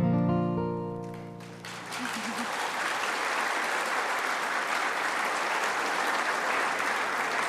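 Last acoustic guitar chord ringing and dying away, then an audience applauding steadily from about a second and a half in.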